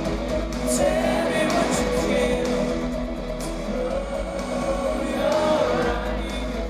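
Live rock band playing, with sung vocals over the music.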